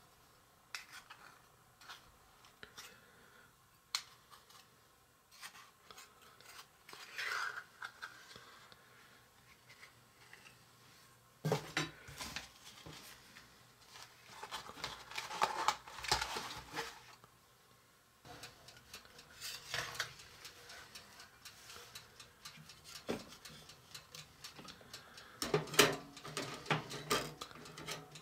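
Small metal pizza pans clinking, scraping and tapping, with cardboard from a pizza box and cake round rustling, as pizzas are handled and turned out of the pans. The handling comes in irregular bursts, loudest in a few stretches of a couple of seconds each.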